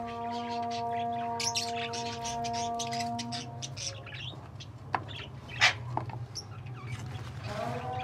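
Small pet parrots chirping, with many short, high calls overlapping. Two sharper, louder chirps come about five and five and a half seconds in. A steady humming tone runs beneath the calls, stops about three and a half seconds in and comes back near the end.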